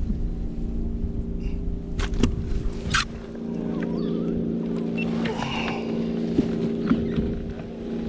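Steady hum of a boat motor running at an even speed, with a few sharp knocks about two to three seconds in.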